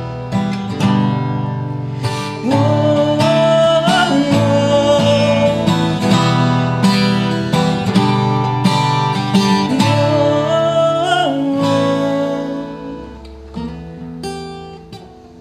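Acoustic guitar strummed in a closing passage, with a wordless sung line gliding over it twice. The playing thins out and fades over the last few seconds as the song ends.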